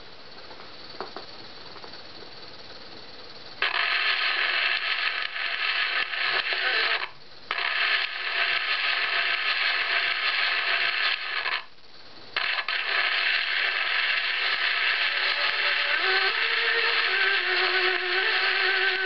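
Edison Diamond Disc playing on a Brunswick 105 acoustic phonograph through a Pathé vertical-cut soundbox that does not properly fit this disc: a light click about a second in as the stylus goes down, then loud groove hiss and crackle starting about three and a half seconds in and breaking off twice for a moment. Faint notes of the recorded violin begin to show near the end.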